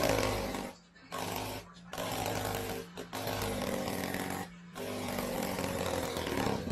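Electric fan blades buzzing and rattling against a cat's paw held in the spinning blades, in about five stretches of a second or so each. A steady low fan-motor hum runs beneath.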